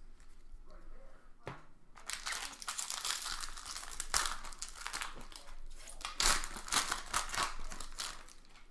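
Foil trading-card pack wrappers being torn open and crinkled: a dense crackling rustle from about two seconds in until near the end, with a few sharper snaps along the way.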